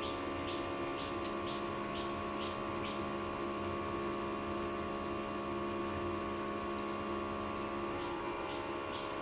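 Omelette frying in a pan over a charcoal fire: a steady low sizzle over a hum. Light ticks come about twice a second and stop about three seconds in.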